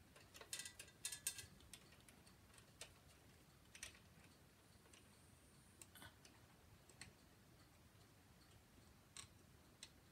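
Faint, scattered sharp clicks and light taps: a quick cluster of several clicks about half a second in, then single clicks every second or two.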